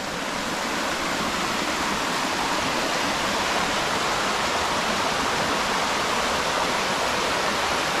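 Steady rush of water from a small waterfall.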